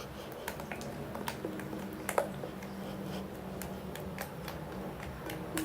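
Sticky soap slime being handled by hand: scattered small clicks and pops over a faint steady hum.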